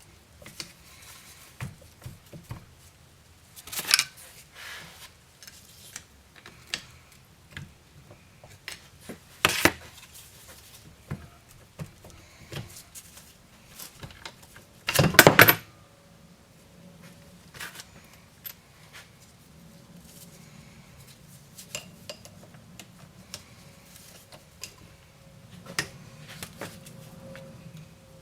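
Metal tools and parts clinking and knocking during Subaru EJ20 cylinder head teardown: scattered sharp clicks with a few louder clatters, the loudest about halfway through.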